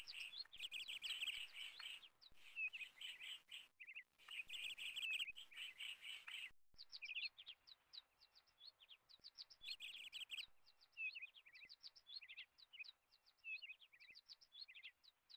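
Small birds chirping faintly in a busy run of quick, high chirps, with a short break about six and a half seconds in.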